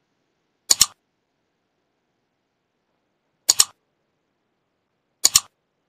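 Mouse-click sound effects: three quick double clicks, about a second in, about three and a half seconds in and near the end, with silence between.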